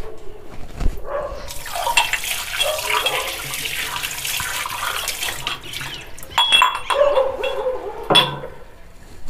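Water running from a tap for about four seconds, then a few sharp metal clinks near the end.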